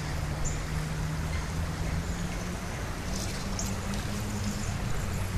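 Creek water running steadily, under a steady low hum and a few faint ticks.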